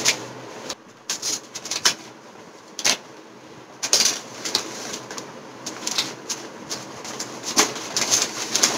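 Paper takeaway bag rustling and crinkling as a hand opens it and rummages inside, with irregular sharp crackles, a few of them louder.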